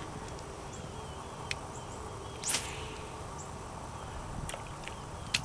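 Insects chirping in short, high, repeated calls, with a single brief swish about halfway through as a spinning rod is swung in a cast, and a few sharp clicks.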